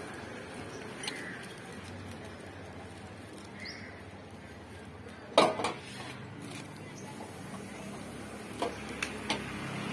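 Unboxing handling of a stainless steel gas stove and its plastic-wrapped parts over a cardboard box: light rustling and clicks, a sharp clattering knock about halfway through, and a few light clinks near the end.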